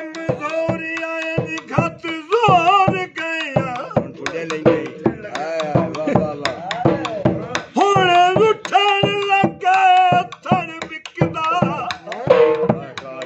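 A man singing Punjabi dohray (folk couplets) in long held, wavering notes over a dhol beating a quick, steady rhythm.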